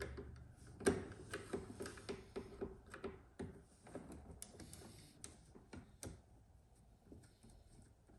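A screwdriver working a Phillips-head screw out of a VW Mk1 steering column cover: a run of small, irregular clicks and ticks, a few a second, loudest about a second in and fading toward the end.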